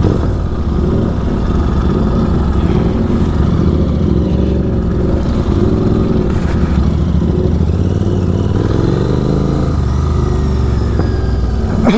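Superbike engine through an aftermarket exhaust, running under throttle with the revs rising and falling several times.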